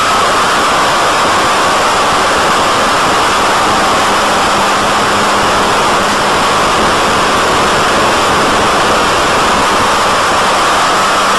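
Steady, loud rushing of air over the onboard microphone of a BTE Delta Vortex RC flying wing in a gliding dive, with a faint steady whine underneath; the motor's hum is not heard.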